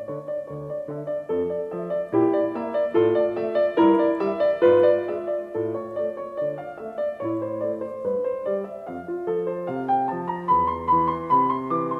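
Background piano music: a steady melody of separate notes over bass notes.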